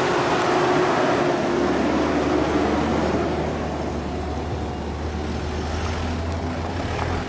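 Four-wheel drives driving past on a dirt track. Engine and tyre noise from a Mazda Bravo ute passing close is loudest early and fades, then a Mitsubishi Pajero's engine gives a steady low hum as it rolls up close.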